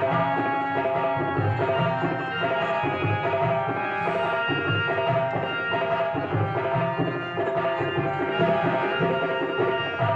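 Indian stage music: a tabla-type hand drum keeps a steady rhythm under a melody of held notes.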